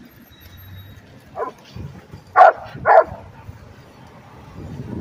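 A large dog barking: one softer bark, then two loud barks about half a second apart.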